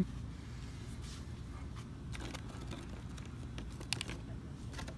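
Steady low background hum of a shop interior, with a few faint clicks and taps of items being handled.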